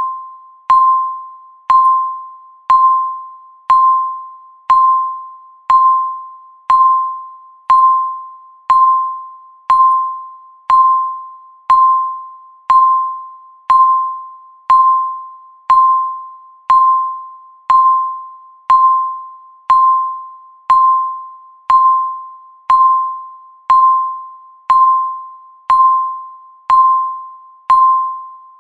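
Countdown timer beeping once a second. Each beep is a short electronic tone at one steady pitch, starting sharply and fading quickly, and it repeats evenly.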